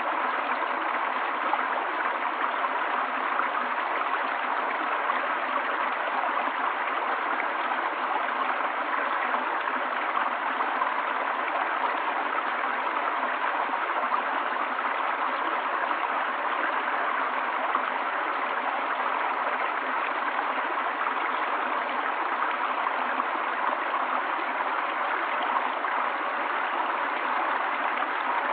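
Forest stream flowing steadily, an even rush of running water with no breaks or changes.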